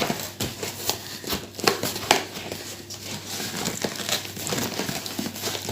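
Cardboard shipping box being pulled open by hand and its packing filler handled: irregular crinkling, rustling and scraping.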